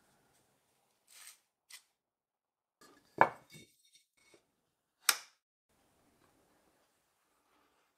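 A metal ball-bearing drawer slide and a metal bar handled on a wooden board. There is a short sliding rasp about a second in, then a loud clack just after three seconds, followed by a few small clinks, and a sharp metallic click about five seconds in.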